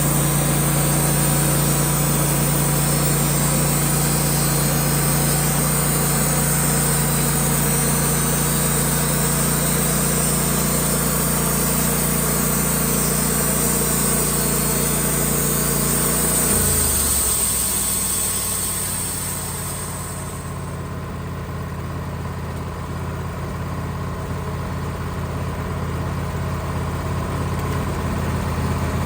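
Band sawmill's engine running steadily with a high hiss over it. About 16 seconds in the engine's pitch drops as it is throttled back, and the hiss fades out a few seconds later.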